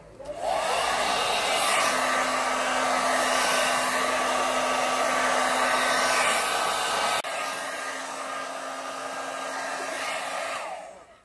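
Handheld hair dryer switched on, spinning up with a short rising whine, then blowing steadily. About seven seconds in it suddenly becomes quieter with a click, and near the end it is switched off and winds down.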